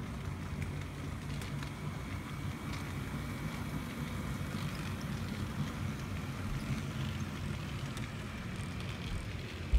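Model train running past: diesel locomotives and trailer-on-flatcar cars rolling along the track, a steady low rolling hum with a light rattling hiss over it. A brief thump comes right at the end.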